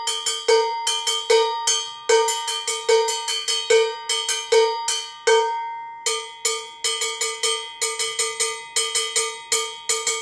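Handcrafted mid-pitch contracampana, a bongo cowbell on a mount, struck with a drumstick in a steady rhythmic pattern. Each stroke gives a bright metallic clank that rings briefly, with one longer ring about halfway.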